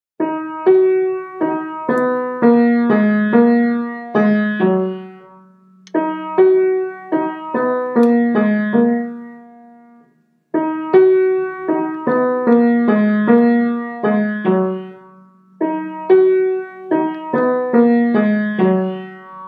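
Piano playing a simple melody in four short phrases. Each note is struck and left to fade, with brief pauses between the phrases.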